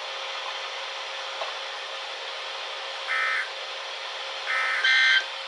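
Weather-radio receiver hiss, then about three seconds in, short bursts of data tones repeating about every 1.4 s: the digital end-of-message code that closes an Emergency Alert System Required Weekly Test. Each of the later bursts is followed closely by a louder burst from another radio.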